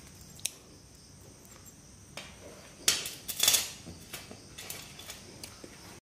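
Handling of a small metal USB adapter on a key-ring chain. There is a light click, then about three seconds in a sharp click and a short burst of metallic clicking and jingling, followed by a few faint ticks.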